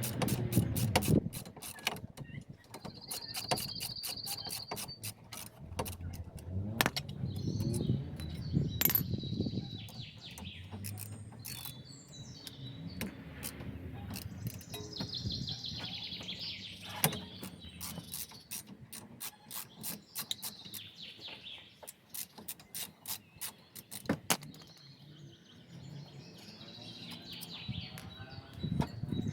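Socket ratchet clicking in runs while the brake caliper bolts are undone, with birds chirping now and then in the background.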